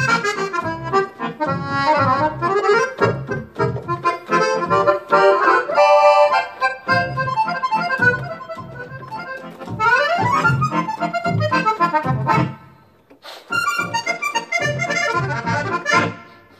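Roland FR4X digital accordion playing a fast tune on a musette sound, with quick treble runs over a steady bass. The playing breaks off briefly about three quarters of the way through, then starts again.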